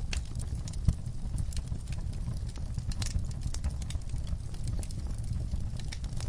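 Wood fire crackling: irregular sharp pops and snaps over a steady low rumble of burning, with one louder pop about a second in.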